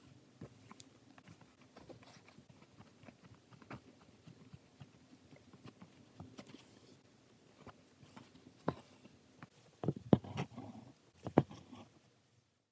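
Embroidery thread being drawn through fabric stretched in a hoop, with fingers handling the cloth: scattered small clicks and rustles, and a few sharper taps in the last few seconds.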